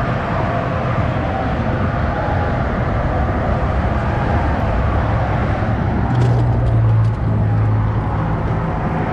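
Steady road traffic on a bridge, with one vehicle passing louder about six seconds in.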